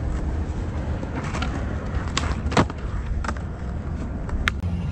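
Skateboard on concrete: the wheels rolling with a steady low rumble, and several sharp clacks of the board striking the ground during kickflip attempts, the loudest about two and a half seconds in.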